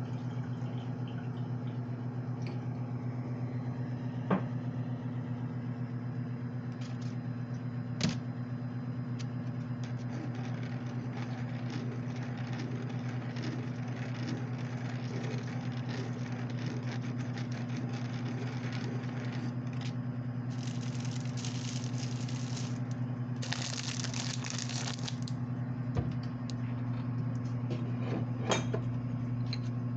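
Microwave oven running with a steady low hum. There are a few sharp knocks and clicks, and about twenty and twenty-four seconds in come two short bursts of rustling food packaging.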